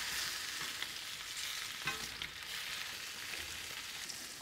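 Flour-coated lamb neck pieces sizzling in hot oil in a frying pan, a steady hiss, with a few light clicks around one and two seconds in.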